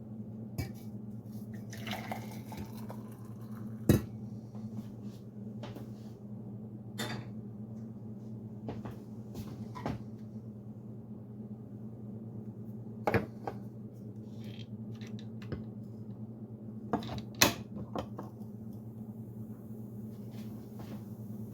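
Clinks and knocks of a pot or container and a steel knife blade being handled, with a few sharper knocks about 4, 13 and 17 seconds in, over a steady low electrical hum.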